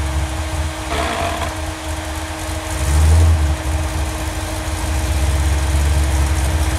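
4x4 truck engine running under load as the truck pushes through deep snow. It gets louder briefly about three seconds in, and there is a short hiss about a second in.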